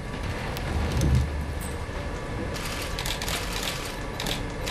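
Rapid bursts of many camera shutters clicking, starting about halfway through, with a low rumbling thump about a second in.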